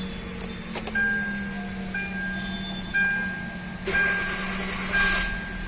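Hyundai i20 dashboard warning chime beeping about once a second with the ignition on, then a brief burst of starter cranking about four seconds in as the engine fires up, now that a blown 10 A fuse that blocked the immobilizer has been replaced.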